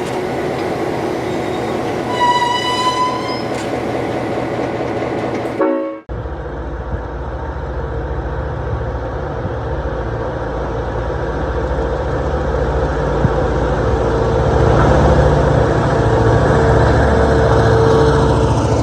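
Train passing on jointed track with a short horn blast about two seconds in. After an abrupt cut at about six seconds, an EMD GP9 diesel locomotive with a two-stroke 567 engine is heard running as it approaches, its low rumble and steady hum growing louder toward the end.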